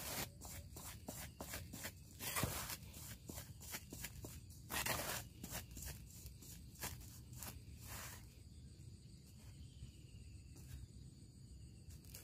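Hands kneading and turning damp, crumbly fishing groundbait in a basin: gritty rustling and scraping in uneven strokes, loudest in bursts about two and a half, five and eight seconds in, quieter after that.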